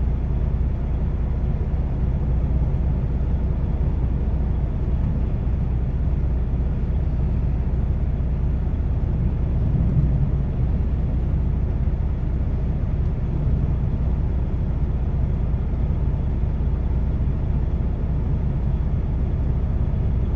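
Steady low mechanical rumble, even throughout, swelling slightly about ten seconds in.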